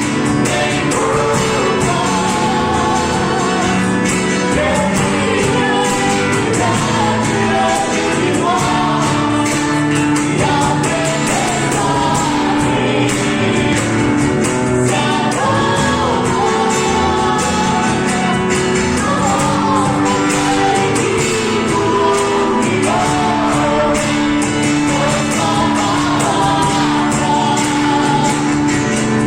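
Christian gospel song with voices singing over a band with a steady beat.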